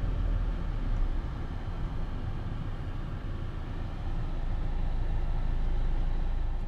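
Car cabin noise while driving: a steady low engine and road rumble. It dips a little about a second in and rises again about four seconds in.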